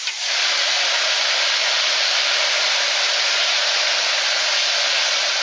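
Pressurised carbon dioxide discharging as gas with a loud, steady hiss that starts at once and holds level.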